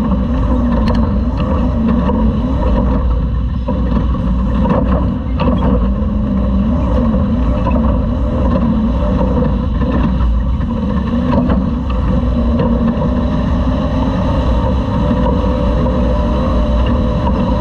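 Class 2000 off-road race truck engine running hard, its revs rising and falling continuously, over a heavy rumble from the truck on rough dirt. A few sharp knocks are heard about a second in, around five seconds in and near the middle.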